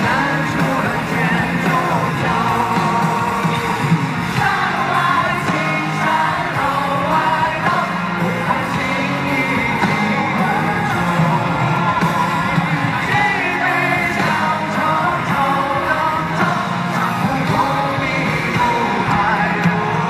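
Male pop singer singing live into a handheld microphone over continuous band accompaniment.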